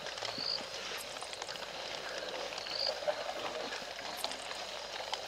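Night-time waterhole ambience: a steady chorus of night creatures, with a short high chirp repeating about every two and a half seconds and scattered small clicks.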